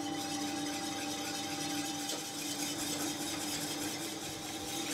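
Steady hum of a commercial kitchen's extractor hood, with faint scraping of a utensil stirring sauce in a stainless saucepan.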